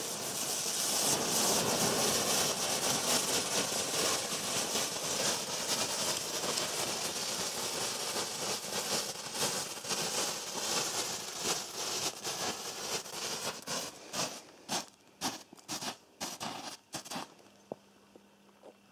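Small ground fountain firework spraying sparks with a steady hiss. About three-quarters of the way through it breaks up into irregular sputters and dies out.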